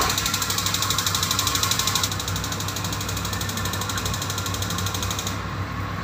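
Rinnai tankless gas water heater's electronic spark igniter ticking rapidly, with its gas solenoid valve clicking, over a steady rushing of water flowing through the unit; the ticking stops about two seconds in. The igniter and solenoid are working, and the technician suspects a clogged gas regulator instead.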